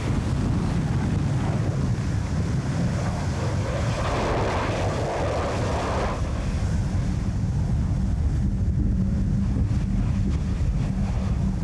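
Wind buffeting the microphone, a steady low rumbling noise, with a brighter rush from about four to six seconds in.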